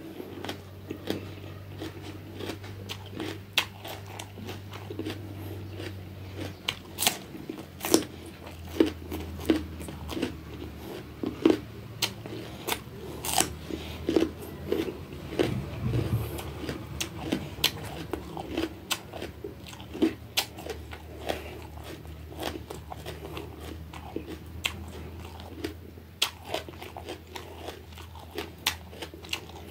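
Close-up crunching and chewing of raw bitter gourd: irregular sharp crunches as the firm, bumpy flesh is bitten and chewed, continuing throughout.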